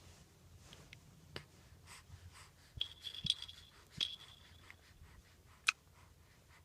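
A small bell toy jingling faintly in a few short shakes, about three seconds in and again about a second later, amid light taps, with one sharper click near the end.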